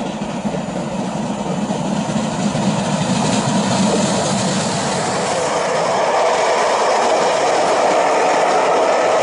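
Steam locomotive 35028, a rebuilt Merchant Navy class Pacific, working a train of Pullman coaches. The rumble of locomotive and coaches grows louder as the train draws near and runs past close by.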